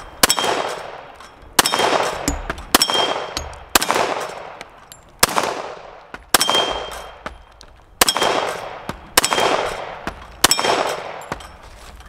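Glock 41 MOS pistol in .45 ACP firing nine single shots at an uneven pace, roughly one every second or so, each a sharp report with a short echo. Several shots carry a brief metallic ring from the steel plate targets being hit.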